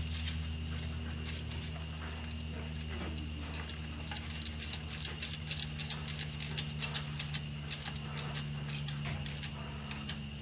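Socket ratchet clicking in quick, irregular runs, sparse at first and denser from about four seconds in, over a steady low hum.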